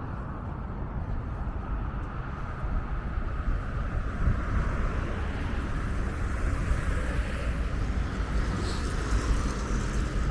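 Steady road traffic noise with a low rumble of wind on the microphone, the traffic swelling somewhat about halfway through.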